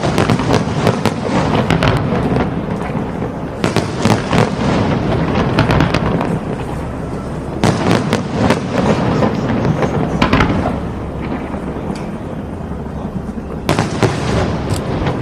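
Aerial fireworks bursting: continuous crackling and popping, with louder volleys of sharp bangs every few seconds.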